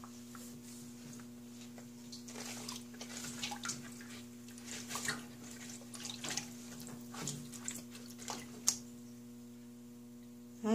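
Faint, irregular drips and small splashes of water in a stainless steel sink as soaked alpaca fleece in mesh bags is squeezed out and pressed down into rinse water.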